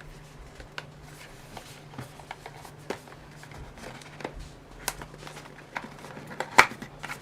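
Hands handling small items and packaging: scattered light clicks and rustles, with one sharper knock about six and a half seconds in. A faint steady low hum runs underneath.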